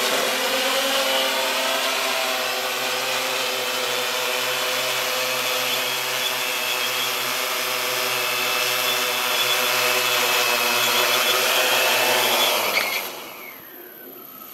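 Multirotor drone's electric motors and propellers humming steadily as it descends and lands, then spinning down and stopping about 13 seconds in. A faint high whine is left.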